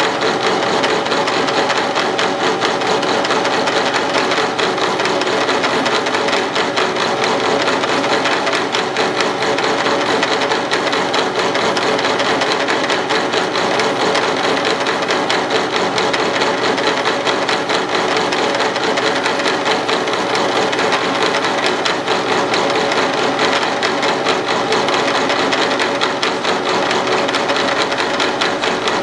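Mill-drill spindle driving a home-made right-angle milling attachment, running steadily with a fast, even clatter as a 60-degree cutter mills 10-24 threads into 3/16-inch drill rod turned by the 4th axis.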